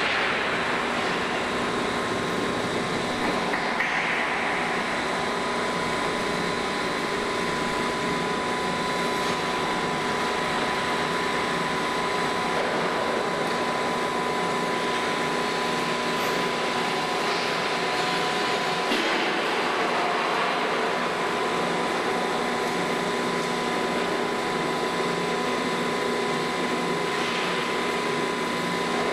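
Large plate rolling machine running steadily as its rolls bend a thick steel plate: a constant industrial hum with a steady whine.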